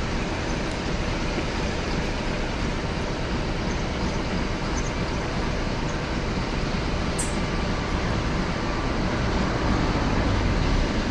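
Two steam locomotives double-heading a train, the LNER K4 2-6-0 61994 The Great Marquess one of them, working under steam. They make a dense, steady rumble of exhaust and running gear that grows a little louder near the end.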